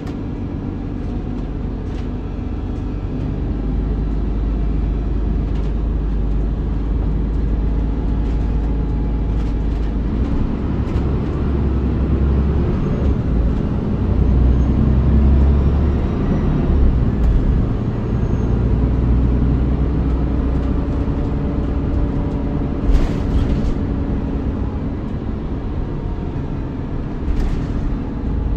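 Volvo B7RLE bus's 7-litre six-cylinder diesel engine running with its ZF automatic gearbox, a deep continuous drone that grows louder through the first half and then holds. Two sharp knocks come near the end.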